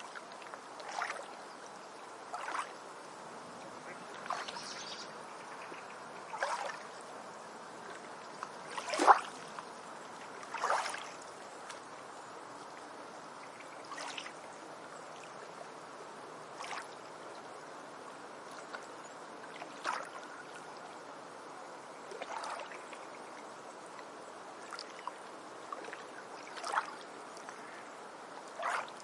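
Trickling stream water with a steady hiss, broken every second or two by short, uneven water splashes; one splash about nine seconds in is the loudest.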